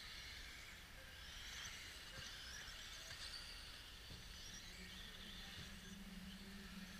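Radio-controlled off-road model cars racing on the track, heard faintly as a high, shifting whine of motors and tyres. A low steady hum comes in about four and a half seconds in.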